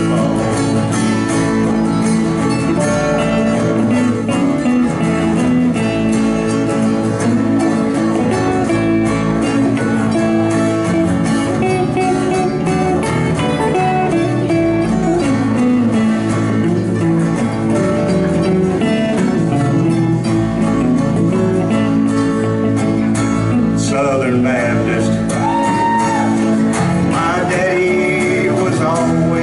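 Live country song: strummed acoustic guitar with electric guitars, and a man singing through a PA, his voice clearly heard near the end.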